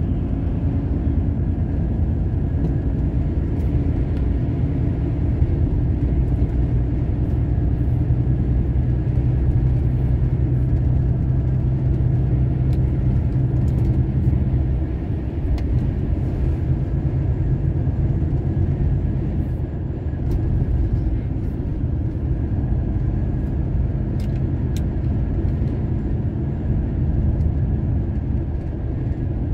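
Truck's diesel engine running steadily under way, heard from inside the cab with road noise. About halfway through, the strong low hum of the engine drops away and the level eases slightly.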